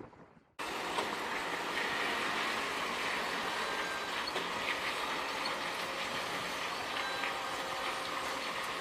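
Heavy machinery running steadily, with scattered sharp metallic clicks. It starts abruptly about half a second in.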